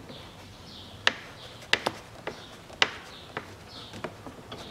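Sharp, irregular plastic clicks and taps from a gloved hand working the black screw-on filler cap of the rider's yellow plastic tank, about seven in all, the loudest about a second in and near three seconds. Faint high chirps sound in the background.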